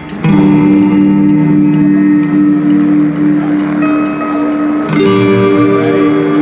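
A band playing live, with guitar chords left ringing; a new chord is struck just after the start and the chord changes about five seconds in.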